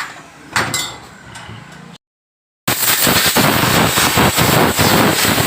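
A couple of sharp metallic clinks, then after a brief cut a Honda CD70's single-cylinder four-stroke engine running loud and close, a dense hiss full of rapid clattering knocks.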